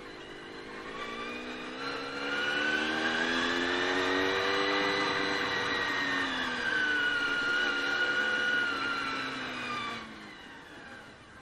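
Honda VFR400 NC30's V4 engine pulling the bike away, its note climbing in revs for a few seconds, easing, climbing again, then dropping away about ten seconds in as the bike slows. A high whine rises and falls along with the engine note.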